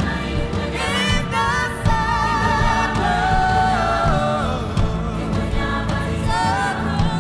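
A choir singing, led by a male and a female soloist on microphones, with instrumental backing.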